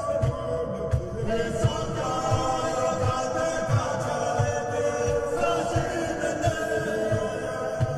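Recorded Fulni-ô Indigenous chant: a group of voices singing together over a steady low beat about twice a second.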